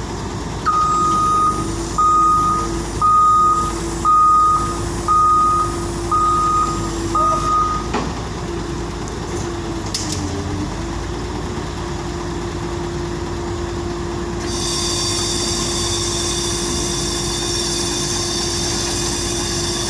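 Wheeled backhoe loader's reversing alarm beeping seven times, about once a second, over its steady diesel engine running. The beeping stops about eight seconds in, and a high whine of several tones joins the engine near the end.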